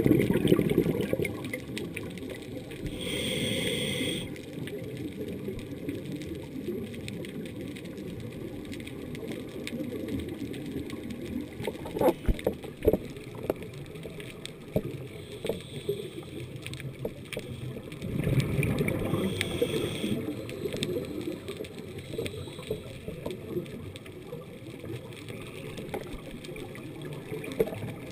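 Muffled underwater sound through a camera housing: a low steady rush that swells twice, about three seconds in and again past the middle, as a scuba diver breathes out through the regulator in a gush of bubbles. A few sharp clicks come just before the middle.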